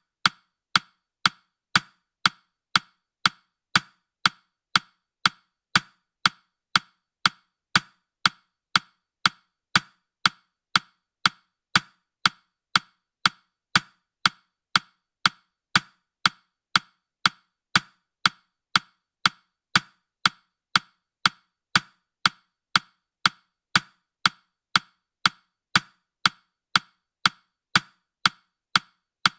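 Ticking sound effect of a countdown timer: short, sharp wooden-sounding ticks, evenly spaced at about two a second.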